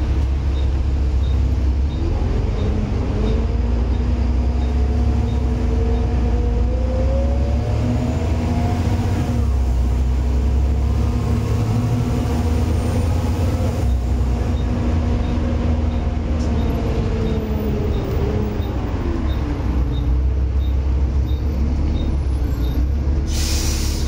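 Volvo B7TL double-decker bus under way, heard from the upper deck: its straight-six diesel pulls with a deep rumble through the ZF automatic gearbox, the pitch rising through the gears early on and falling as the bus slows near the end, under a steady whine of the type known as the 'Hoover' cooling-fan sound. A faint regular ticking, about two a second, comes and goes.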